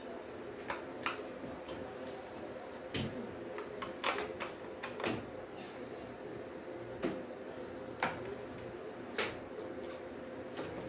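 Irregular knocks and clunks of kitchen items being handled and moved while a cupboard area is cleared, about eight separate bumps over a steady faint hum.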